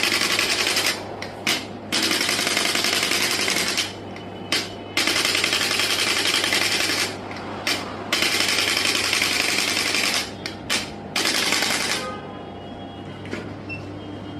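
Handheld percussion massage gun running against the body in bursts of one to three seconds, with short breaks and a few brief taps between them.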